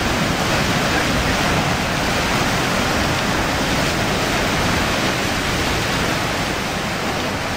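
Paddle wheel of the 1901 paddle steamer Uri churning the lake into foam while the boat berths at a pier: a steady, loud rush of water.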